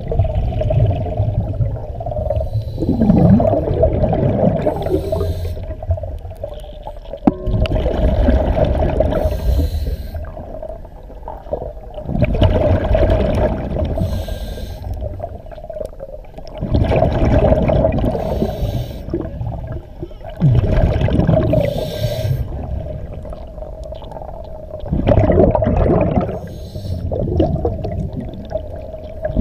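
Scuba diver breathing through a regulator underwater: a loud rush of exhaled bubbles about every four seconds, quieter between breaths.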